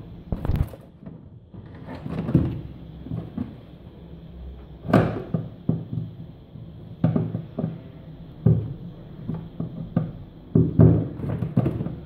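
Flat screwdriver prying at the plastic clip arms and fittings under a washing machine tub: irregular plastic clicks and knocks, with a sharp click about five seconds in and a quick run of knocks near the end.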